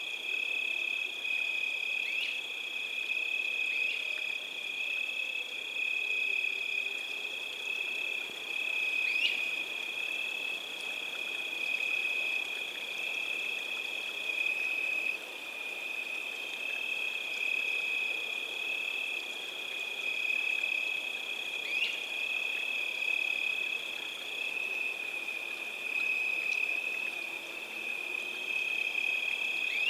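A continuous, high-pitched chorus of calling animals, frogs or insects, holding two steady trilling pitches, the upper one fading for a while in the middle. A few brief rising chirps cut through it.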